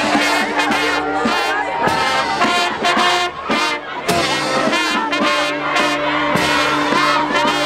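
Brass band playing a slow funeral march, with held brass notes over a steady drum beat, while a crowd of mourners shouts over it.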